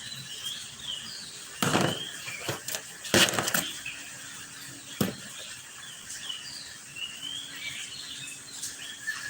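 Small birds chirping in the background, many short high chirps throughout. Three brief, louder noises stand out about two, three and five seconds in.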